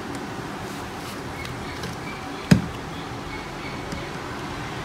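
A single sharp plastic click about two and a half seconds in, over a steady background hiss, as the spring-loaded side lock of a Canon 337 toner cartridge is pressed and worked loose.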